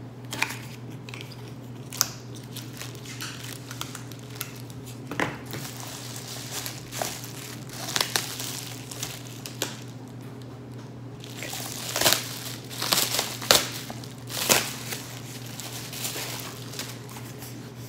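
Plastic bubble wrap crinkling and crackling in irregular bursts as it is handled and pulled off a boxed item. It is busiest and loudest in the last third.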